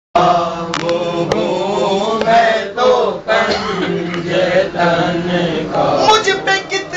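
A man chanting a naat, an Urdu devotional poem, in long, wavering melodic phrases, with a steady low hum underneath.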